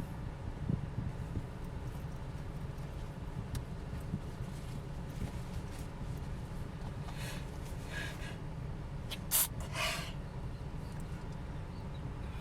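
Steady low rumble of a car on the move; about seven seconds in, a person takes sharp breaths in, then lets out a sudden, sharp allergy sneeze, with a second, smaller burst just after.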